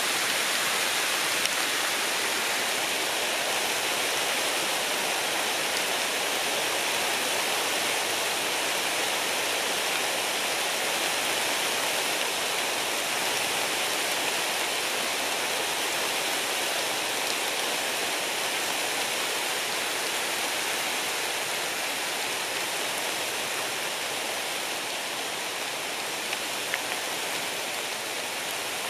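Light rain falling on the leaves of a woodland, a steady even hiss with a few single drops standing out near the start and near the end.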